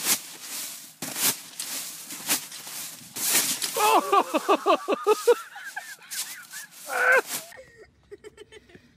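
Sharp crunching impacts of a person bouncing on an ice-crusted trampoline. About four seconds in, a high, rapidly pulsing vocal outburst follows the fall, and a shorter one comes about a second later.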